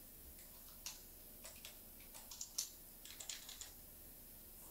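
Computer keyboard keys pressed in a faint, irregular run of light clicks, a dozen or more, bunched between about one and three and a half seconds in.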